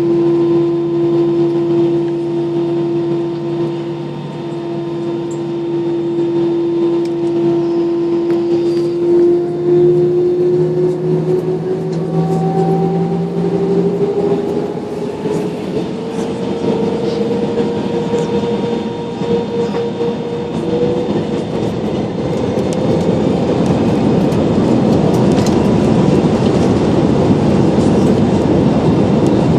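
Airliner's jet engines spooling up for the takeoff run, heard from inside the cabin. A steady whine climbs slowly in pitch over about twenty seconds, while a rushing roar builds beneath it and is loudest near the end.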